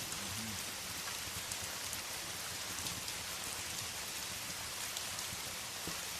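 Steady rain, an even hiss of falling raindrops.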